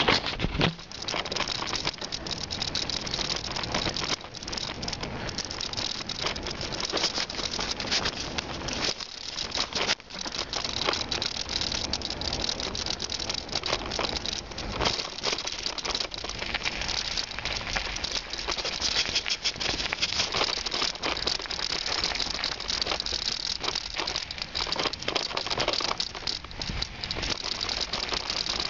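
Bicycle ridden over a rough dirt-and-gravel path: a steady, continuous rattle and clatter of many small knocks from the bike and its tyres jolting over the uneven surface.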